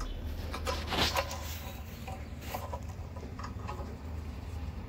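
Scattered clicks and light rattles of a clamp being tightened to hold a straight-edge strip on a granite stair tread, the loudest about a second in. A low steady hum runs underneath.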